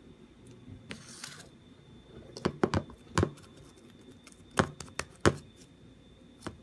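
Irregular sharp clicks and taps, a few close together then spaced out, with a brief rustle about a second in.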